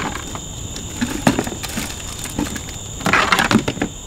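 Items knocking and clattering in a plastic storage bin as someone rummages through it, then a burst of plastic-bag crinkling about three seconds in as a bag is pulled out. A steady high insect trill runs underneath.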